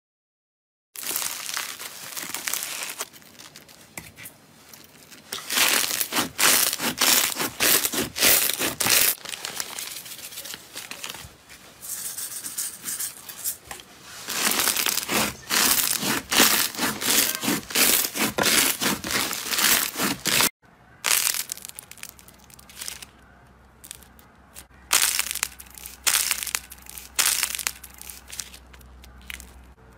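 Hands squeezing and kneading slime, with dense crackling, squishing and popping in bursts, starting about a second in. There is a short break about two-thirds of the way through, after which a different slime is squeezed with the same crackling.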